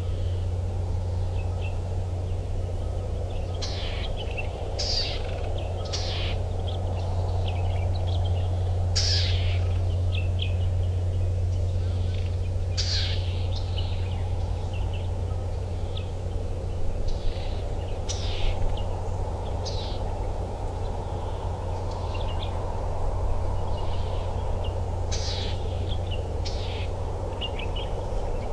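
Birds calling with short, sharp chirps every second or so, over a steady low rumble and hiss.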